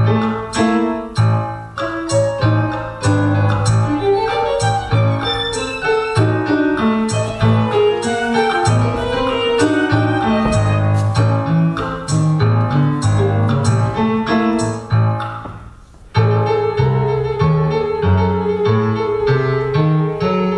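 Piano music with quick, busy notes. It fades out for a moment about sixteen seconds in, then starts again abruptly over a held note.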